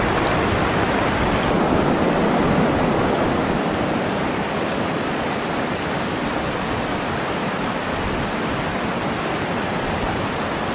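Creek water rushing steadily, a little louder in the first few seconds, with a brief high hiss about a second in.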